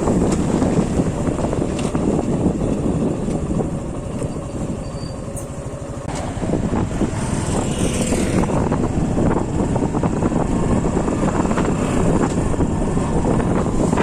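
Motorcycle on the move: engine running with wind and road noise, easing off slightly about four to six seconds in and then picking up again.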